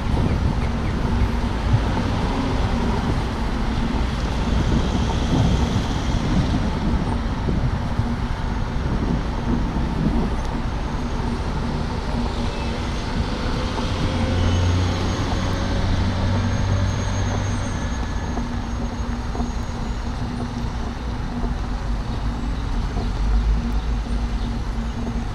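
City street traffic: a steady rumble of road noise from passing vehicles.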